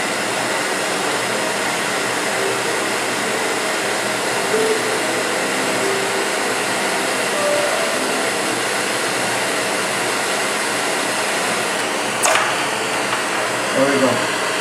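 A propane hand torch burning with a steady hiss, its flame heating the neck of a brass rifle case for annealing. A short sharp click comes about twelve seconds in.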